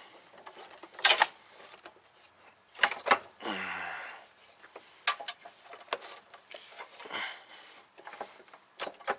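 Scattered metallic clicks and knocks of a car's steering rack being wiggled by hand to drop into its mounts on the front subframe. A sharp, ringing metal clink comes near the end.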